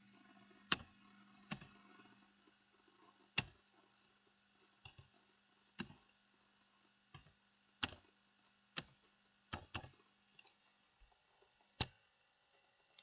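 Slow hunt-and-peck typing on a computer keyboard: about a dozen single, sharp key clicks at irregular spacing, roughly one a second, with the loudest click near the end.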